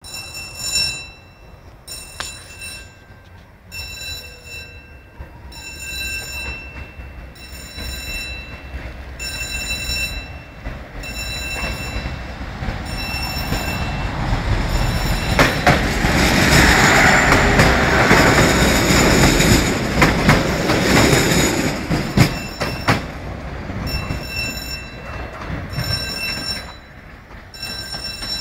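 Level crossing warning bell ringing in repeated pulses about once a second. A passenger train approaches and passes, loudest from about 15 to 22 seconds in, with wheel knocks over the rail joints.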